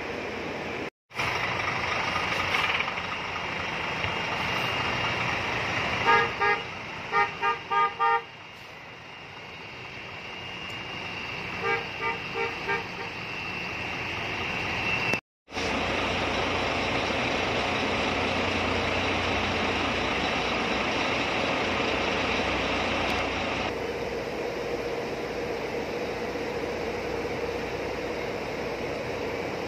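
A bus horn sounding a run of about six quick toots, then about four more some five seconds later, over the steady running of a diesel bus engine.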